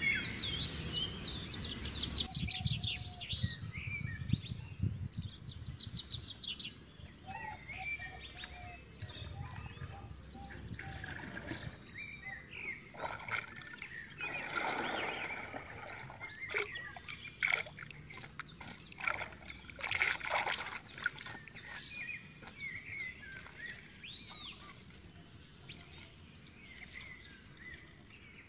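Birds chirping and trilling outdoors. Water splashes a couple of times midway as metal watering cans are dipped into a pond to fill.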